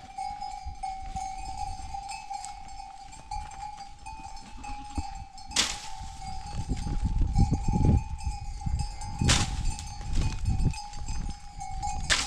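A bell on one of the grazing sheep rings steadily. Three sharp cracks come a few seconds apart, the last as a long wooden stick strikes up into a tree's branches, with some lower thumping and rustling between them.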